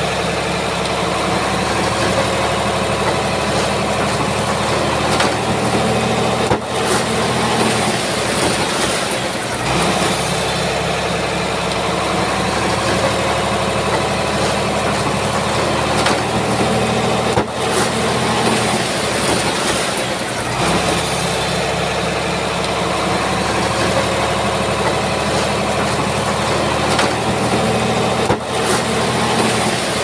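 Small Komatsu crawler bulldozer's diesel engine running steadily while working dirt, its note dipping briefly a few times.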